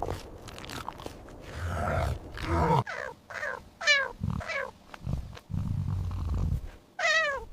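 An animal calling: several short, falling, wavering cries, with low grunting rumbles between them.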